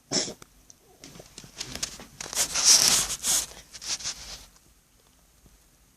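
A cat coughing: several noisy, hacking coughs in a run that stops about four and a half seconds in. This is the cough of a cat whose enlarged heart, diagnosed by a vet, presses against his chest.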